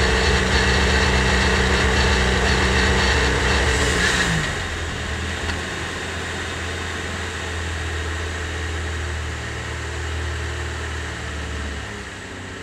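Revolution race car's engine running at a steady speed as the car rolls down the pit lane. About four seconds in the note drops to a quieter, lower steady hum as the car slows to a stop.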